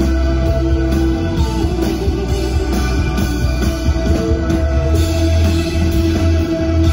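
Rock band playing live over a venue PA, heard through a phone's microphone in the crowd: electric guitars holding steady ringing notes over bass and drums. The deep bass thins out about a second in and comes back in strength near the end.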